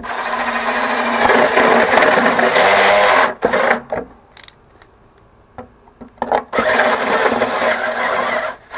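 Power drill spinning a high-speed steel step drill bit as it bores a hole through a dash panel. It runs for about three seconds, stops, a few light knocks follow, and it drills again for about two seconds near the end.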